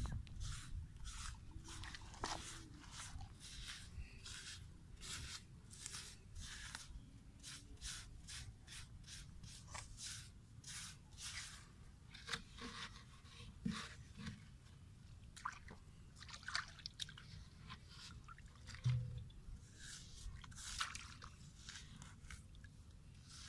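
Hands crumbling and pressing clods of soil around a PVC pipe set in a dug hole: many quiet, irregular crunches and scrapes.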